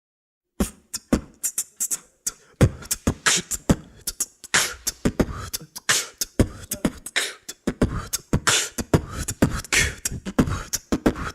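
Solo vocal beatboxing: a fast, dense run of mouth-made percussion, deep hits mixed with sharp hissing hits, starting about half a second in.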